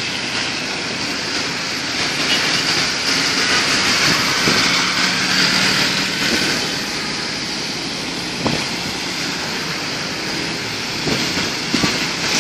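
Traffic passing on a rain-soaked road: a steady hiss of tyres on the wet asphalt with vehicle engines running, one engine's hum rising out of it around the middle. A few sharp clicks or knocks come late, one about eight and a half seconds in and a couple near the end.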